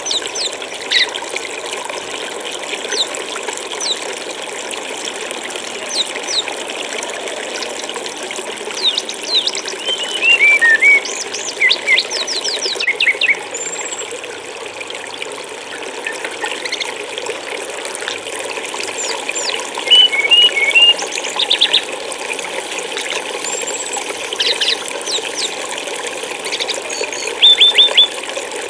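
Steady rush of flowing stream water, with a small songbird, the brown-chested jungle flycatcher (SRDC), giving clusters of quick, sharp, high chirping notes every few seconds. The loudest bursts come about a third of the way in, two-thirds of the way in and near the end.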